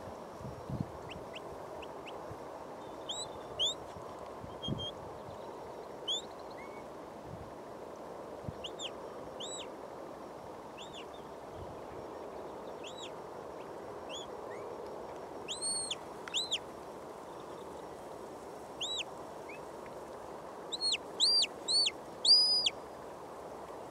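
Shepherd's whistle commands to a working border collie: short, arched whistled notes, rising then falling, repeated on and off, with a quick run of four or five louder ones near the end. A steady background hiss runs underneath.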